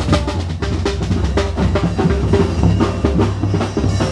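Drums beating rapidly in procession music, dense strokes over a low steady tone underneath.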